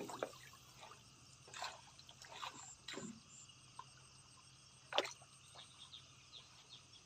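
Faint water dripping and trickling, with a few separate drips or small splashes, the clearest about five seconds in.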